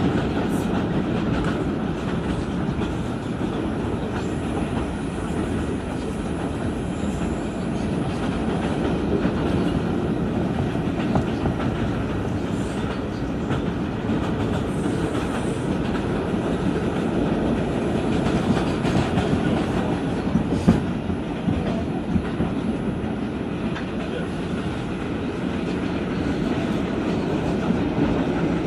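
Interior of an R142 subway car running at speed on an express run, its wheels rumbling steadily on the rails with a clickety-clack of rail joints and occasional sharp clicks. The car's HVAC is off, so no ventilation fan noise covers the running sound.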